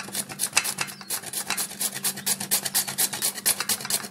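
A carrot being grated on a plastic hand grater: quick, even rasping strokes, about seven a second.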